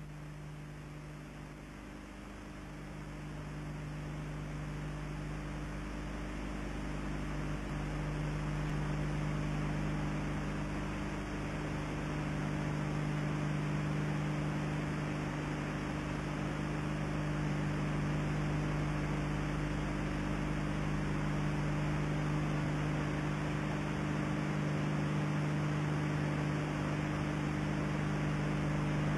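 Steady low electrical hum with hiss over it, getting louder over the first several seconds: the background noise of an old analogue video recording from around 1984.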